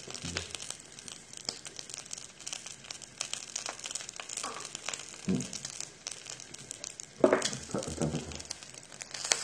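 Wild boar meat crackling in its fat on a hot grill pan, an irregular scatter of small pops, with two brief louder low sounds about five and seven seconds in.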